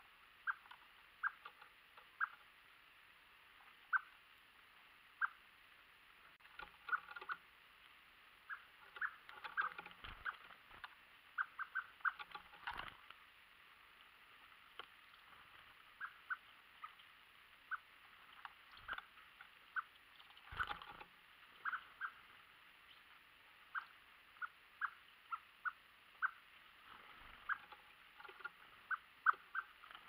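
Small birds pecking at grain on a wooden feeder tray, close up: irregular sharp taps, at times several a second, with a few louder knocks.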